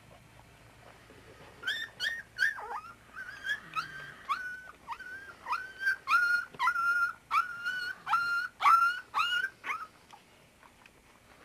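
Young puppy whining: a long run of short, high-pitched cries, about two a second, each holding its pitch and then dropping off at the end. The cries start a couple of seconds in and stop shortly before the end.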